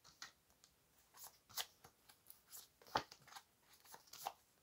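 Faint hand-shuffling of a tarot deck: scattered soft snaps and flicks of cards, a few a second, the sharpest about three seconds in.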